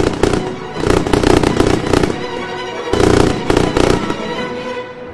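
Aerial firework shells bursting and crackling in two dense volleys, about a second in and about three seconds in, over music.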